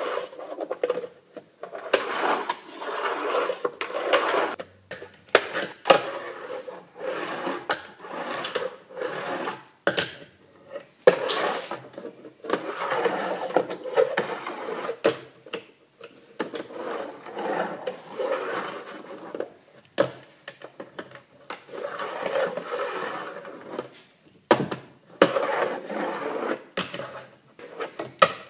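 Fingerboard riding a wooden mini half-pipe: its small wheels rolling up and down the plywood in repeated runs, broken by frequent sharp wooden clacks as the board hits and lands on the ramp.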